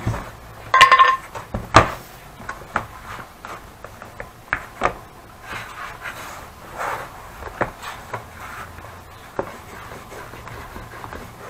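Leather being handled on a wooden workbench: hands rubbing and pressing the leather, with scattered knocks and taps of leather and tools. A short squeaky tone comes about a second in, followed by a sharp click, the loudest sound.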